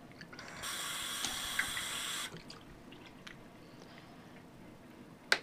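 Water running from a bathroom sink tap for about a second and a half, starting and stopping abruptly, followed by a few faint small clicks.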